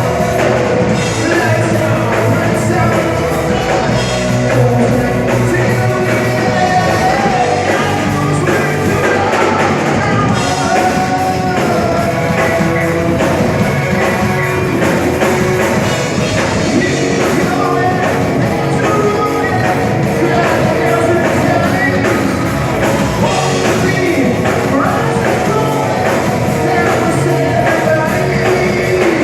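Live rock band playing loudly, with a singer over guitars and drums.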